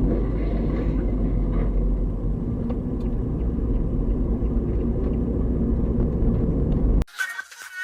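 Steady low rumble of a car on the road, engine and road noise. It cuts off abruptly near the end as electronic music begins.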